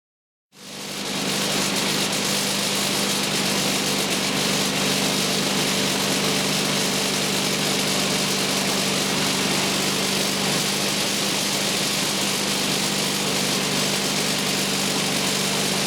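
Woodland Mills HM130 MAX portable band sawmill running steadily under its gas engine, fading in within the first second.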